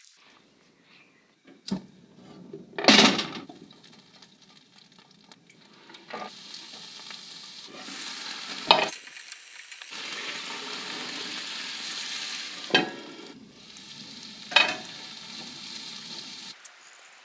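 Chopped leeks and onions sizzling in a frying pan and being stirred with a wooden spoon, with a few sharp knocks of the spoon and lid against the pan. A loud rush of noise comes about three seconds in, before the steady sizzling sets in.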